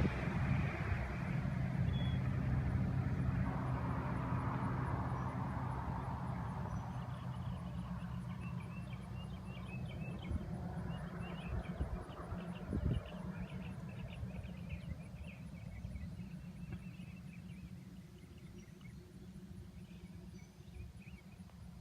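Kenworth W900 logging truck's diesel engine and road noise fading steadily as the truck drives away, with crickets chirping. A brief knock about two-thirds of the way through.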